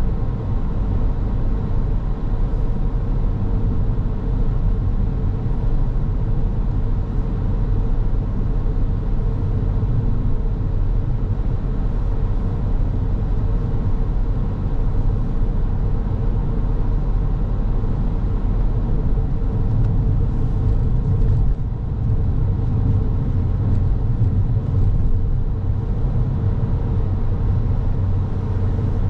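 Car driving at a steady pace: continuous road and engine noise with a low rumble and a faint steady hum.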